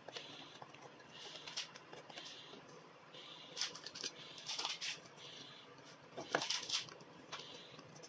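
A steel marking knife and a thin blade scraping and scoring wood by hand: short scraping strokes about once a second, with a few sharp clicks in between.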